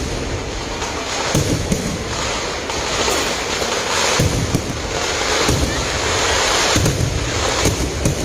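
Kerala temple vedikettu fireworks going off in a dense, unbroken barrage: continuous crackling of small bangs, with heavier booms about every second.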